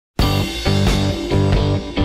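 Rock music with guitar, starting abruptly a moment in.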